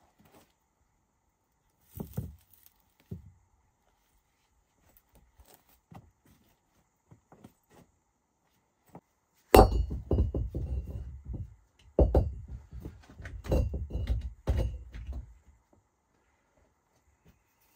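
Stones knocking and clattering as they are handled and set down: a couple of single knocks, then from about the middle a run of heavy thuds and clacks lasting several seconds.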